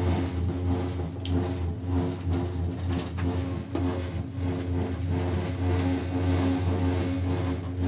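Aerial tram cabin running along its cable, heard from inside the cabin: a steady low hum, with a couple of faint clicks.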